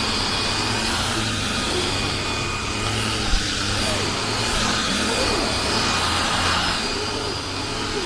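Xiaomi Vacuum Cleaner G10 cordless stick vacuum running steadily with its upholstery brush head, vacuuming a fabric sofa. A brief bump about three and a half seconds in.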